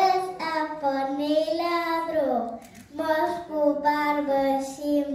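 Young children singing a song, two sung phrases with a short break about two and a half seconds in.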